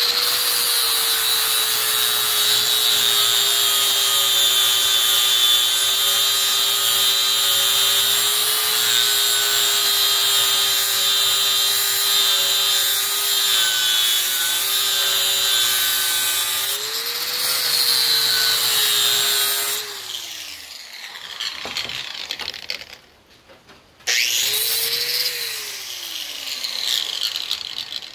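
Angle grinder with a flap disc sharpening the edge of a steel lawn mower blade: the motor runs steadily under load with a high grinding hiss. After a long pass it speeds up briefly as the disc comes off the steel, then winds down. Near the end it is switched on again for a moment and coasts down.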